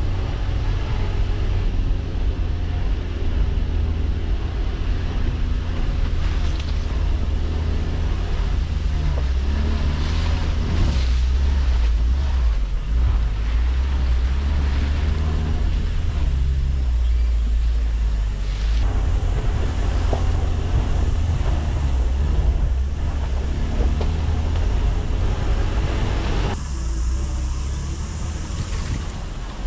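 Mitsubishi L300 Delica 4WD van crawling along a rough dirt and grass track: the engine running with a steady deep rumble, and the tyres and body working over the ruts. The sound changes abruptly near the end.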